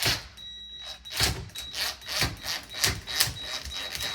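Irregular sharp clicks and knocks, about two or three a second, as a screw is driven in to fasten a smart lock's mounting part to a metal door.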